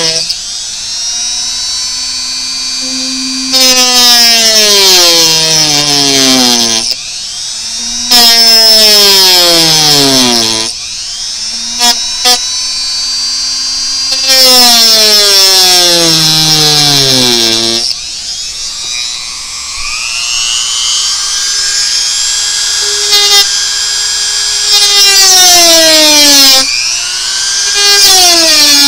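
Dremel rotary tool with a cut-off wheel plunge-cutting a plastic interior panel: its high motor whine keeps dropping in pitch as the wheel bites and jumping back up, with several louder, harsher grinding stretches of a few seconds each as the wheel cuts through the plastic.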